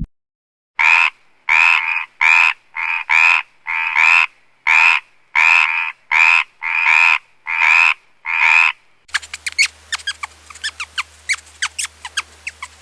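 An animal's short call, repeated about fifteen times at roughly two a second. About nine seconds in it gives way to a quick run of high clicks and chirps.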